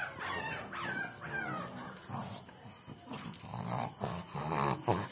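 Several pug puppies whining and yapping: a string of quick falling whines for the first couple of seconds, then a run of short, rougher yaps.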